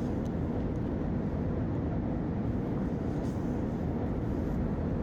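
Steady low rumble of a moving vehicle, an even noise with no distinct events.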